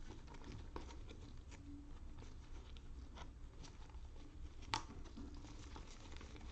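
Faint scattered clicks and light rustling, with one sharper click about three-quarters of the way through.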